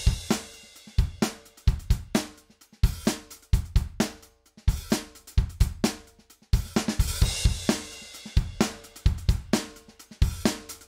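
Drum kit recording with kick, snare, hi-hat and cymbals, first played dry, then run through an 1176-style FET compressor set to a very fast attack and fast release. About halfway through, once the compressor is switched in, the decays between hits are held up and the kit sounds denser.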